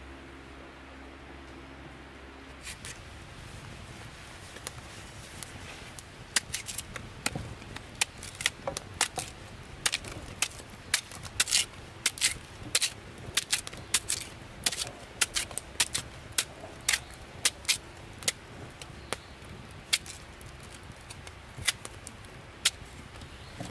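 A machete cutting pieces off a fibrous white plant stalk over a cooking pot. The cuts are sharp and irregular: they start a few seconds in, come quickly through the middle, and thin out near the end.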